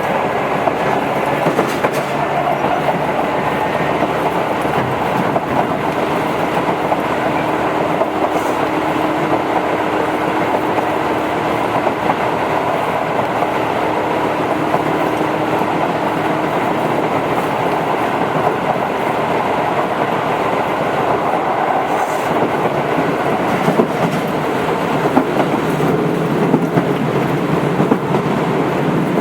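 Tobu 8000 series electric train running at speed between stations, heard from inside the car: steady rumble of wheels on rail with occasional clicks over the track.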